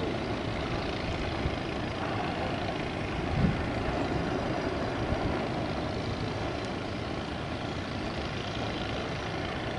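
ATR 72 turboprop airliner on approach, heard from a distance as a steady, even rumble of engine and propeller noise. A brief low thump about three and a half seconds in.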